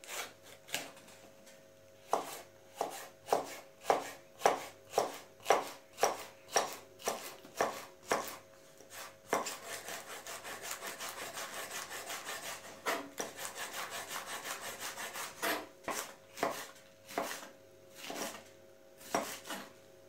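Kitchen knife chopping green peppers on a wooden cutting board: sharp knocks about two a second, a stretch of rapid fast chopping in the middle, then slower knocks again.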